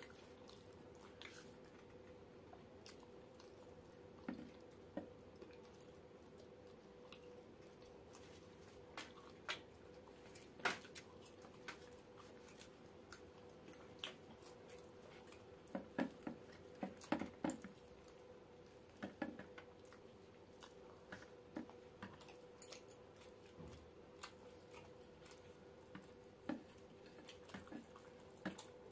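Quiet eating by hand: chewing, lip smacks and soft squishes of fingers tearing roti and dipping into chicken curry, heard as scattered small clicks that come thickest around the middle. A faint steady hum lies underneath.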